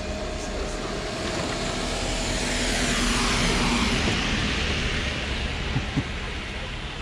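A vehicle passing by: its noise swells to a peak around the middle and then fades. Two short knocks close together near the end.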